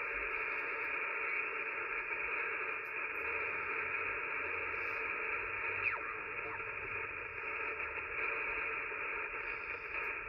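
Yaesu FT-One HF transceiver receiving on the 40-metre band while its dial is tuned down the band: steady static hiss from the speaker, narrowed by the receiver's filter. About six seconds in, the whistle of a carrier sweeps past, falling in pitch.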